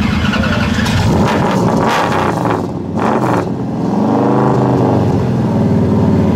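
Dodge Charger R/T's V8 running through its exhaust, with sharp throttle blips in the first few seconds. One rev rises and falls about four seconds in.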